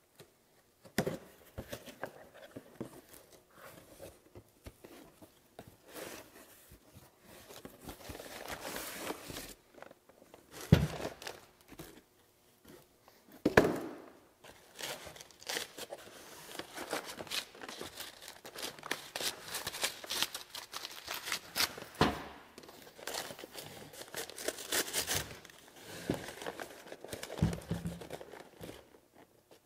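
Heavy paper wrapping crinkling and tearing as a packaged part is unwrapped from a cardboard box, in irregular rustles. A few sharp knocks break in, the loudest about eleven and fourteen seconds in.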